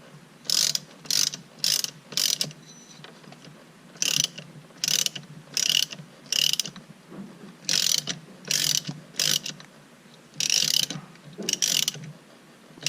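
Ratchet wrench clicking in short bursts, three or four strokes at a time with brief pauses between groups, as Loctite-coated bolts of a steering-wheel quick release hub are run in.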